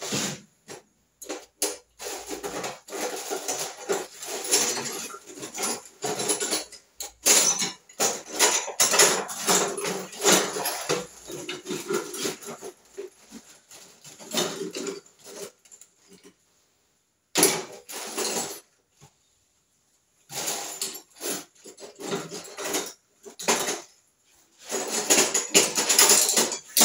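Metal hand tools clinking, rattling and scraping in irregular bursts as hex keys are handled and tried on the gearbox casing bolts. There is a short lull about two-thirds of the way in.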